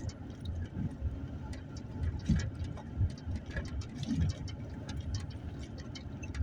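Vehicle driving slowly over a rough dirt track, heard from inside the cab: a steady low rumble from the engine and tyres with frequent small clicks and rattles as it jolts over bumps.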